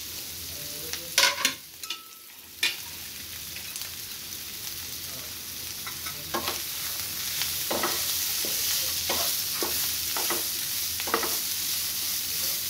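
Strips of potato and jackfruit seed sizzling in hot oil in a non-stick frying pan, with a few sharp knocks about a second in. From about halfway, a wooden spatula knocks against the pan every second or less as the food is stirred, and the sizzle grows louder.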